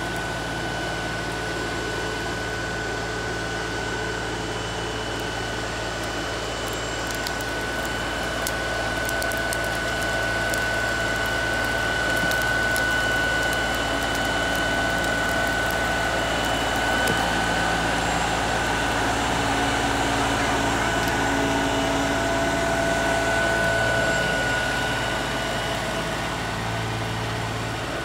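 LS XR3135 compact tractor's diesel engine running steadily as its front-end loader bucket pushes through brush and stumps, with a steady high whine over the engine. It gets a little louder through the middle, with faint crackling of branches now and then.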